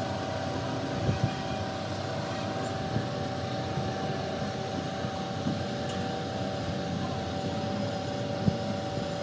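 Workshop machinery running with a steady hum, with a few sharp knocks about a second in, at about three seconds, and a louder one near the end.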